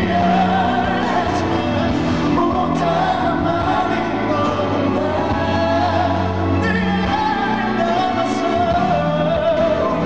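Male singer singing a song live into a microphone, with band accompaniment, heard through a concert PA.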